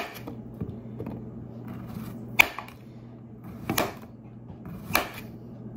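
Kitchen knife slicing squash thin straight onto a tray: sharp taps of the blade striking the tray, fainter at first, then three louder ones about a second apart in the second half, over a low steady hum.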